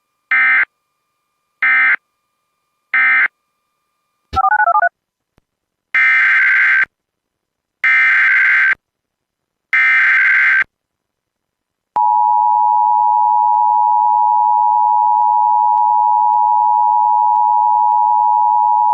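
Emergency Alert System tones: three short squawking SAME data bursts (the end-of-message code), a brief warbling tone about four seconds in, then three longer SAME header bursts opening the next alert. From about two-thirds through, the steady two-tone EAS attention signal (853 and 960 Hz) sounds and holds.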